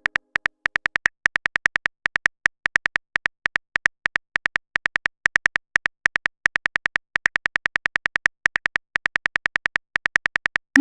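Phone on-screen keyboard key-click sound effect: rapid, slightly uneven taps at about six or seven a second, like a message being typed out.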